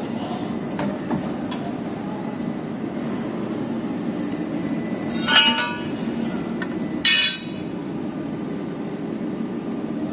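CNC tube bending machine running with a steady drone, a few light clicks early, then two short, loud metallic squeals about five and seven seconds in.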